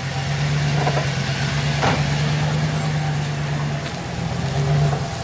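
Dodge Ram 1500 pickup's engine running steadily at low revs as the truck crawls slowly over rough ground, with one brief sharp snap about two seconds in.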